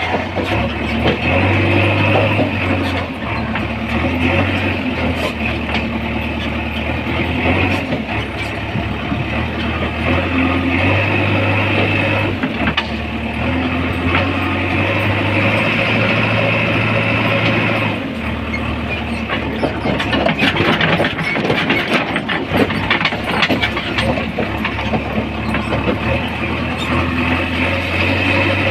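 JCB 3DX backhoe loader's diesel engine running, its pitch stepping up and down several times as the revs change. About two-thirds through, a spell of rattling and clatter joins the engine.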